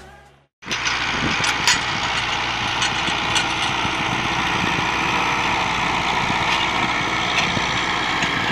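Zetor 8111 tractor's diesel engine working under load with a Howard power harrow churning through dry, cloddy soil: a dense, steady clatter over a low engine hum, with scattered sharp clicks. It starts abruptly about half a second in.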